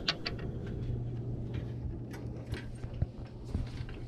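Scattered light clicks and taps over a steady low hum.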